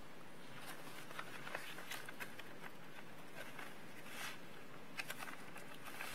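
Sheets of paper and the pages of a book rustling and tapping softly as they are handled close to a microphone, in scattered short rustles and clicks over steady room hiss.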